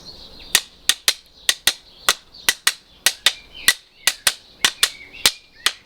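Two flat pieces of wood clapped together over and over, making sharp clacks in an uneven beat of about three strikes a second.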